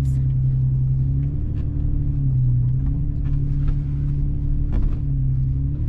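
Toyota FJ Cruiser's 4.0-litre V6 running at low speed, heard from inside the cabin while crawling over rocks; its note rises and falls a few times with the throttle. A few faint knocks sound over it.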